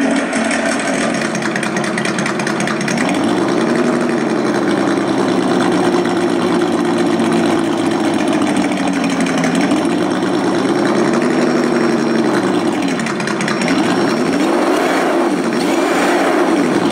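Simulated engine sound from an ESS-DUAL real-engine sound simulator, played through its small speaker box. The engine idles and is revved up and down about three times with the throttle, each time climbing, holding and falling back.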